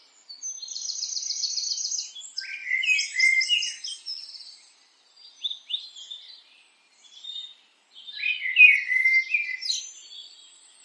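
Songbird song: a fast, even, high trill lasting about two seconds, followed by quick warbled phrases in bursts with short pauses, the loudest burst near the end.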